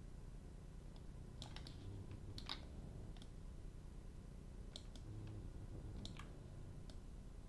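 Computer mouse and keyboard clicks: about a dozen short, sharp clicks in irregular clusters, over a low steady hum.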